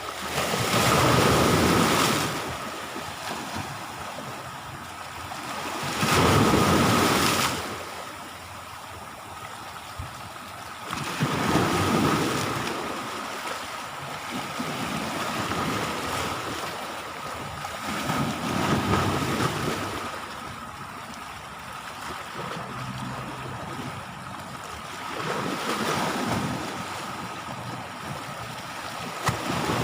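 Sea waves breaking on the shore, a swell of rushing surf about every six seconds, five times over, the first two the loudest. A faint steady high tone runs underneath.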